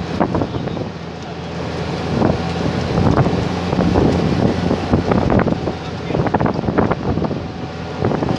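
Drilling rig machinery running with a steady low drone, with repeated metallic clanks and knocks from drill pipe handling on the rig floor.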